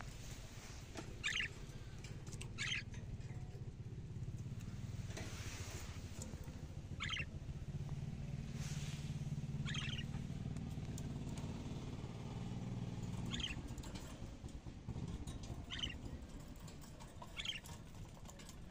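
Caged budgerigars chirping: single short chirps every second or two, over a low rumble that swells in the middle.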